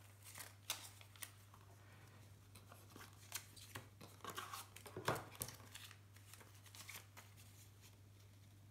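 Paper instruction leaflets and a thin cardboard box insert handled and shuffled: soft rustling with scattered light clicks and taps, the loudest about five seconds in, over a faint steady low hum.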